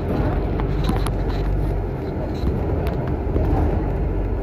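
Bus running: a steady low engine and road rumble, with a few light clicks and rattles.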